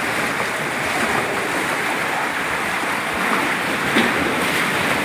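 Rough sea surf surging and breaking against rocks and the pier's pilings: a steady rushing wash of water slapping hard below. There is one brief knock about four seconds in.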